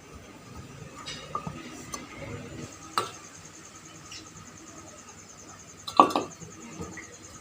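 Scattered metallic clinks and knocks of hard objects being handled, with the loudest clatter about six seconds in.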